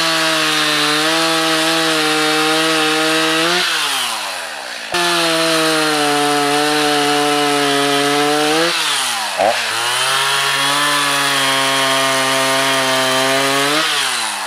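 Two-stroke gas chainsaw cutting through a felled tree trunk at full throttle, held steady in three long stretches. Between them it eases off toward idle, about four and nine seconds in, with a short rev during the second pause, and it drops back again near the end.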